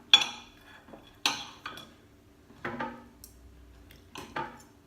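Metal cutlery clinking and scraping against a plate: about five sharp clinks, each ringing briefly.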